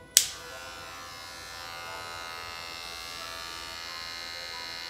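Wahl Magic Clip cordless hair clipper switched on with a click, then running steadily with its blade going.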